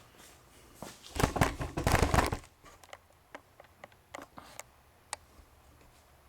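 A second or so of loud rustling, crackling handling noise, followed by a scatter of light clicks and taps.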